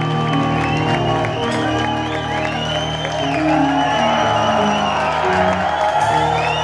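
Live rock band playing amplified guitars, bass and drums with sustained chords, with crowd cheering and whistling underneath.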